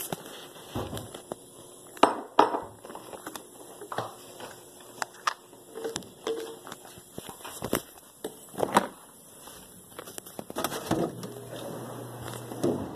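Plastic baby bottle and its cap being handled: irregular clicks, taps and knocks of plastic with rustling, close to the microphone.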